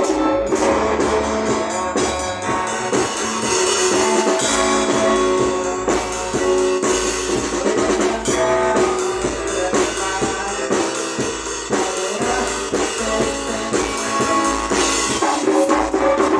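Upbeat gospel music with a steady drum beat.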